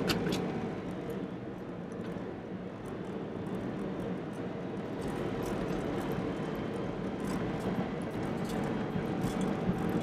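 Steady engine and road noise inside a moving car's cabin, with a faint low hum.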